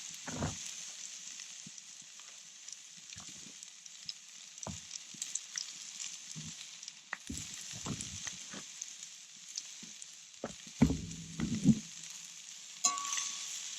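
Food frying in a cast iron skillet over campfire coals: a steady sizzle, with a few low thumps scattered through it.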